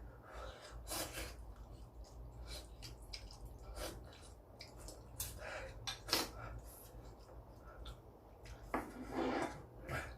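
Someone eating ramen from a bowl: light, scattered clicks and scrapes of utensils against the bowl, with one louder, longer sound near the end.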